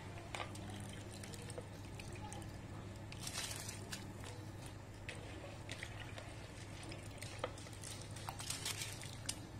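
Soaked basmati rice tipped into a pot of boiling water, splashing and pattering into the bubbling water, with a louder burst of splashing about three seconds in. A steady low hum runs underneath.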